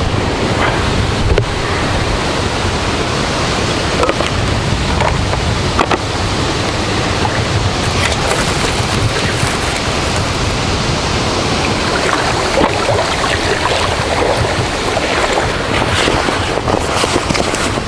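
Strong wind blowing across the microphone as a thunderstorm comes in, with choppy lake water lapping. It is a steady, heavy rush with a deep rumble underneath.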